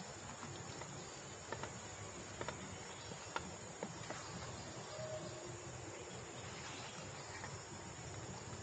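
Steady high-pitched drone of insects, with a few light clicks and knocks between about one and four seconds in as a spoon stirs lamb pieces in a pot.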